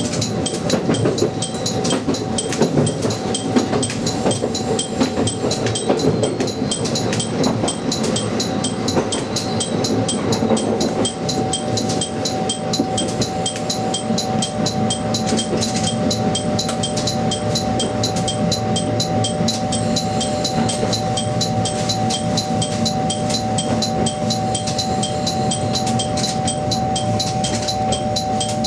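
A diesel railcar heard from the cab, rolling slowly into a station with wheel and running rumble and a rapid, even ticking. From about halfway a steady hum comes in as the rumble eases.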